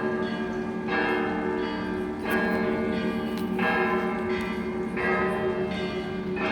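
Russian Orthodox church bells ringing a zvon: several bells struck together in a repeating pattern, a fresh round of strikes about every second and a quarter over the sustained hum of the ringing bells.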